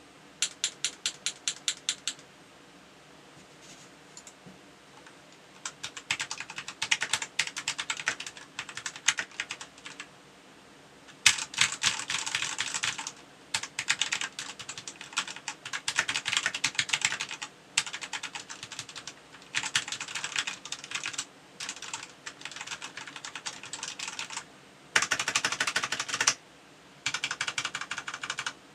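Typing on a Royal Kludge RKG68 mechanical keyboard: a quick even run of keystrokes at the start, then bursts of typing broken by short pauses, with a loud fast run near the end.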